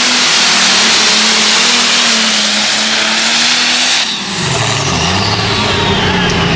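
Light Pro Ford pulling tractor's engine running flat out under load, then, about four seconds in, it drops off at the end of the pull. The engine falls to a lower, uneven note and a high whine falls steadily in pitch as it winds down.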